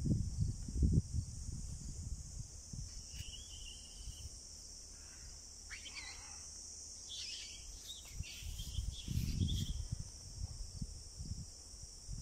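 Insects buzzing in a steady high drone, with a few faint chirps in the middle and low rumbling surges of noise on the microphone now and then, strongest at the start and about three quarters of the way in.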